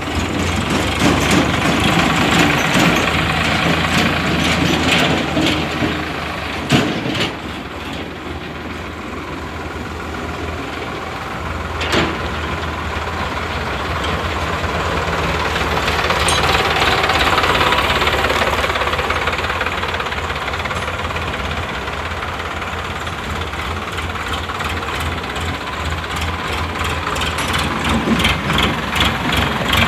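Heavy diesel engines of a backhoe loader and a tractor running steadily under work. Two sharp knocks come through, one about seven seconds in and one about twelve seconds in.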